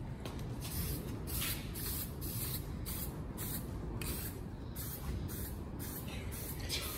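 Aerosol spray paint cans hissing in many short bursts, one after another, as paint is sprayed onto a steel frame; two cans are at work.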